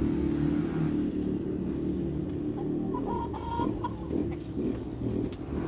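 Bantam chickens clucking as they forage, with a few short, higher calls a little past halfway, over a steady low hum.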